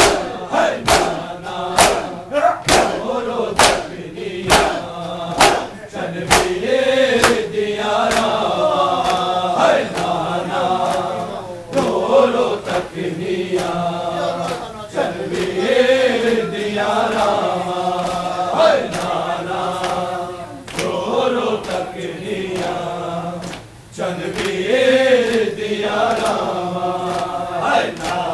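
A crowd of men chanting a noha together. Sharp slaps of hands on chests (matam) come about twice a second for roughly the first six seconds, after which the chanting goes on without them.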